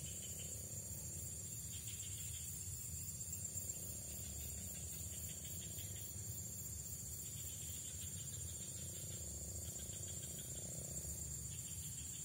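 Steady high-pitched chirring of an insect chorus, with a low rumble underneath.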